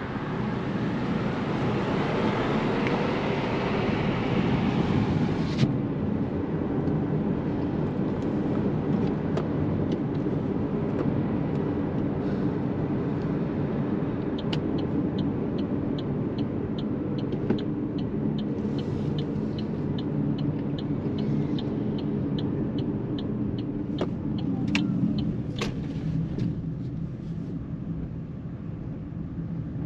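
Steady in-cabin road and tyre rumble of an Opel Mokka-e electric car on the move. A rising hiss cuts off suddenly about five seconds in. Midway, a regular ticking of about two a second runs for several seconds.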